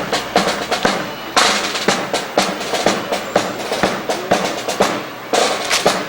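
Quick run of sharp, crisp clacks and beats from a ceremonial drill performance, close together in an uneven rhythm like snare drumming. There are two short hissing flourishes in between.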